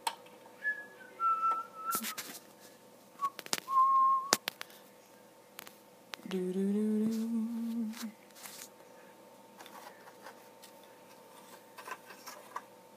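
A person whistling a few short notes, with some sharp clicks in between, then a low hummed note held for about two seconds just past the middle.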